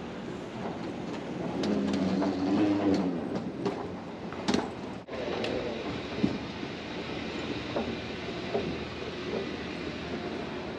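Escalator running while carrying a rider up: a steady mechanical rumble with scattered light clicks from the moving steps. The sound briefly cuts out about halfway through.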